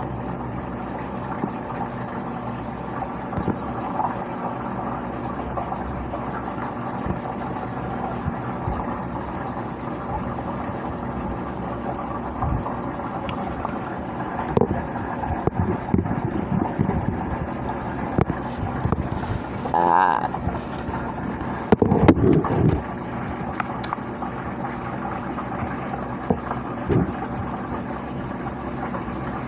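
A person burping loudly once, about three-quarters of the way through, just after a shorter, higher vocal sound, over a steady mechanical hum.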